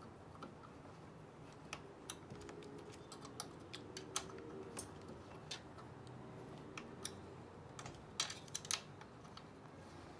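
Light, irregular metallic clicks of an Allen key working loose the engine-mount bolts on a scooter's small two-stroke engine, with a few sharper clicks about eight seconds in.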